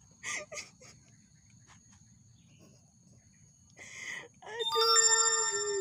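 A woman's voice lets out a long, high-pitched whine near the end, held steady for about a second, after a few short breathy vocal sounds. Under it runs a thin, steady insect tone.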